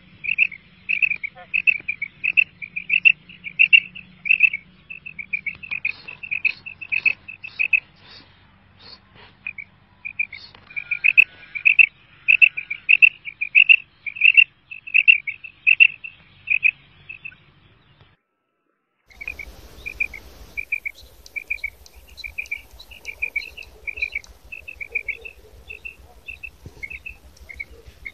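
Female quail calling: a fast run of short, high, repeated notes, about three a second, with a brief break about two-thirds through before the calling resumes.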